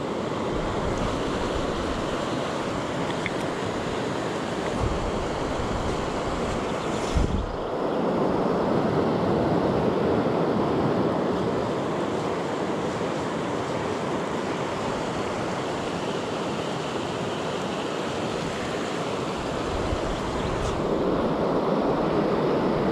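Shallow river flowing fast over a stony riffle: a steady rushing of water, with a single sharp knock about seven seconds in.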